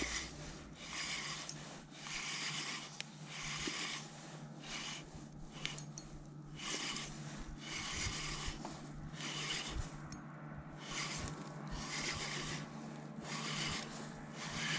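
Fishing reel being cranked to bring in a hooked fish, the rod bent under load: a rasping whir in repeated strokes about once a second.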